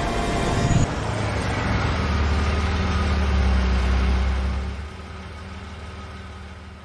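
An engine running with a steady low rumble, which drops in level about five seconds in.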